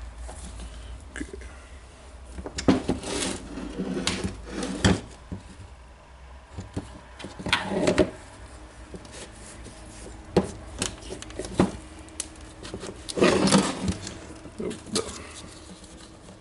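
Irregular clicks, knocks and scraping of plastic and metal parts being handled and fitted together while a diamond core drill's housing is reassembled. A few louder clatters come about three, eight and thirteen seconds in.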